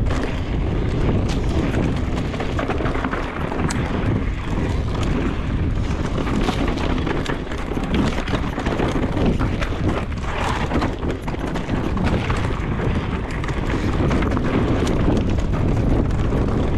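Wind buffeting the microphone of a mountain bike riding a dry, dusty dirt trail, with the tyres rumbling over the ground and the bike rattling and clicking over rough spots.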